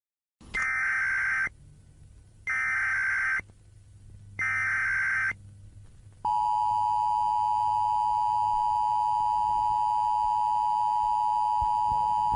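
Emergency Alert System tones: three short bursts of the data-tone header, each under a second with short gaps between, then the steady two-tone attention signal from about six seconds in.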